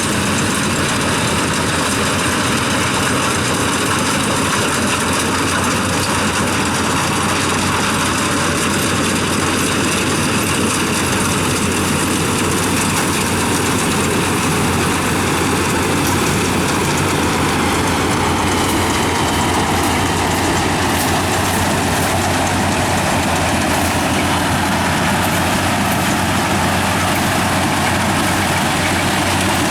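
Yanmar combine harvester's diesel engine and machinery running steadily, a constant loud mechanical drone during rice harvesting.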